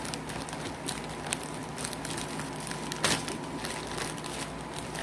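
Paper rustling and crinkling as hands dig through an opened mail envelope looking for a card: irregular crackles, with one louder crackle about three seconds in.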